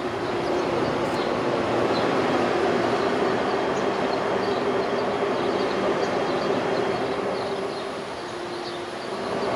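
Loud steady machinery noise from a grain elevator plant: a constant rumble with a held drone tone, dipping a little for a second near the end. It is loud enough to drown out speech.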